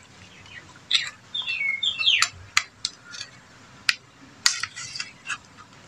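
Metal spoon and plastic ladle clinking and scraping against a stainless steel bowl while mixing raw catfish with chopped spices and tomatoes, with several sharp clinks. A few short falling chirps come in around two seconds in.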